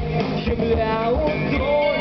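Rock band playing live: electric guitars and drums, with a sung melody line bending in pitch.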